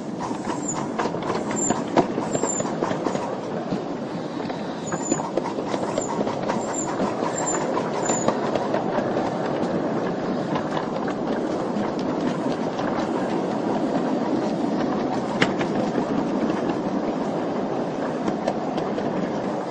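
Live-steam Atlantic 4-4-2 locomotive running along the track with its riding cars, a steady rumble with wheels clicking over the rail joints. There are a few brief high squeaks in the first eight seconds or so.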